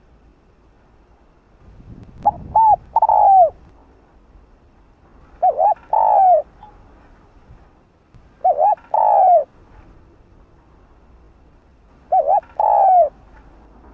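Spotted dove cooing: four calls spaced about three to four seconds apart. Each call is two short quick notes followed by a longer falling coo.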